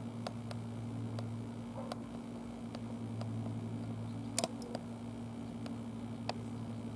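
Steady low mechanical hum over faint hiss, with scattered small clicks and ticks, the loudest a quick double click about halfway through.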